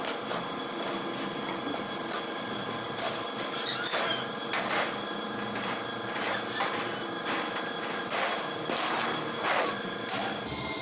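Tin snips cutting through thin galvanized steel sheet, a string of short, sharp metallic cuts about one every half second to second as the blades bite along the line.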